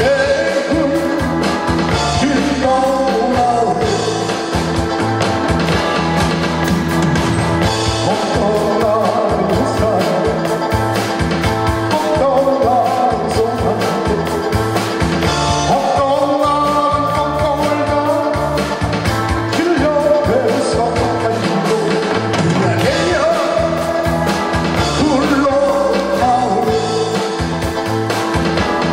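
A man singing a Korean song into a handheld microphone over amplified backing music with a steady beat.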